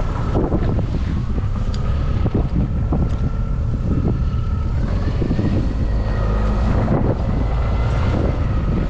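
Small fishing boat's engine running steadily under way, with wind buffeting the microphone and waves splashing against the hull. The engine's pitch steps up a little about halfway through.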